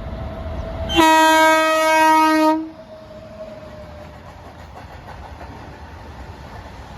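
Train locomotive horn sounding one loud blast about a second in, lasting about a second and a half, followed by the steady running noise of the coal train.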